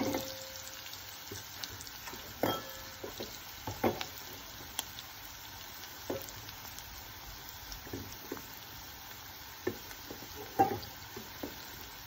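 Onions and ground toor dal frying in oil in a nonstick pan, a faint steady sizzle. A spatula scrapes and knocks against the pan every second or two.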